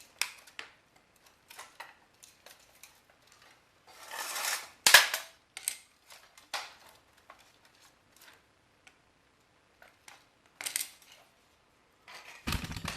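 Parts of a Philips CD-i player being pried apart by hand while a low-grade circuit board is worked loose: scattered clicks and knocks, a scraping rustle about four seconds in that ends in a loud sharp crack, another snap near eleven seconds and a dull thump near the end.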